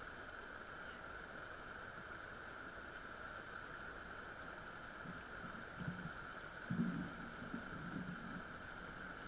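Shallow river running steadily over stones, an even hiss with no change. A few short, faint low sounds come in over the last few seconds.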